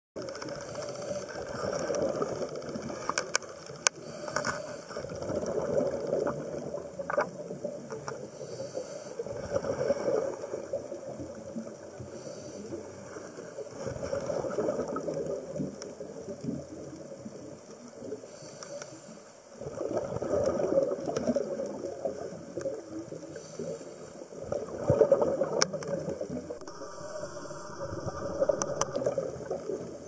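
Scuba diver breathing underwater through a regulator: a short hissing inhale, then a longer rush of exhaled bubbles, repeating every few seconds, with a few sharp clicks.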